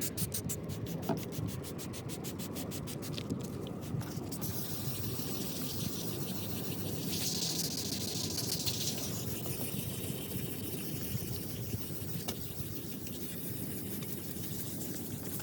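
Sandpaper scraping over a plastic headlight lens in steady sanding strokes, with a short hiss about seven seconds in.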